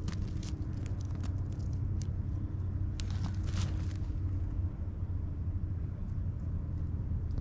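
Steady low rumble, with light clicks and scrapes of quartz and clay being dug out and handled, mostly in the first half.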